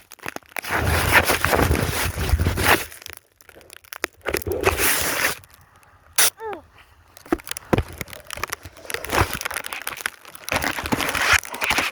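Snow crunching and rubbing right against a phone's microphone in loud scraping bursts, with a low rumble of handling noise.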